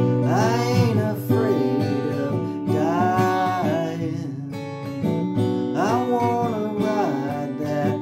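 An acoustic guitar strummed in steady chords, with a man's voice singing four long held notes over it.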